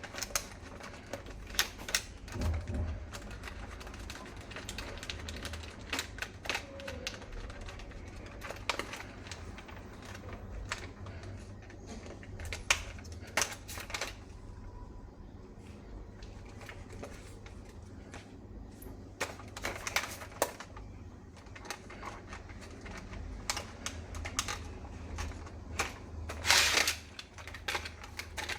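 Plastic parts of a toy HK417 rifle clicking and knocking as it is handled, in irregular sharp clicks with a denser rattle near the end, over a low steady hum.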